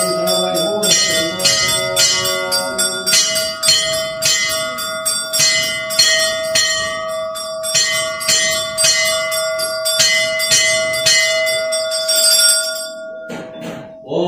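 Temple bells ringing during a Hindu puja, struck rapidly and steadily at about three strokes a second, each stroke's high ringing overlapping the next, over a steady humming tone. The ringing stops about 13 seconds in.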